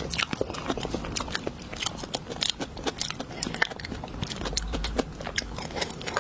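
Close-miked eating sounds: irregular crisp clicks and crunches of food being bitten and chewed.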